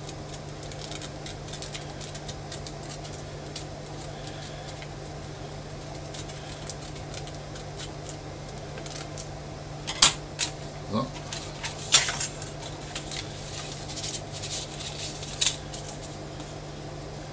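Small scissors snipping through a printed paper template, with paper rustling, over a steady low hum. From about ten seconds in come a few sharper clicks and taps as the paper is handled and laid flat on a cardboard sheet.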